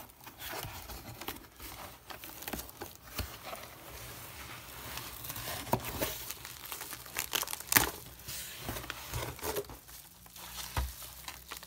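Bubble-wrapped packages and cardboard box flaps being handled as the box is unpacked: crinkling plastic and rustling cardboard with irregular small crackles and a sharper crack a little before the eight-second mark.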